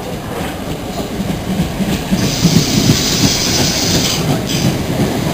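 Southern electric multiple-unit train running along the platform close by, its wheels rumbling and clattering on the rails and getting louder. A high hiss comes in about two seconds in and cuts off about four seconds in.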